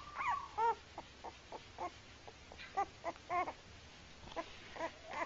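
A 23-day-old puppy whimpering and squeaking: a string of about fifteen short, high-pitched cries, the first sliding up and down in pitch.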